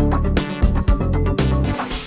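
Background music with a steady beat and guitar, its last notes ringing on at the end.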